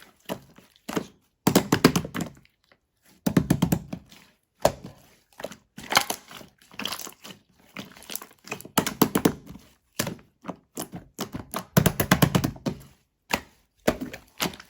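A light-green crystal ball being crushed: repeated bursts of crackling crunches, each burst under a second long, coming every one to two seconds.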